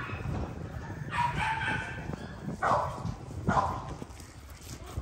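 XL American Bully dog barking, about four separate barks at uneven intervals.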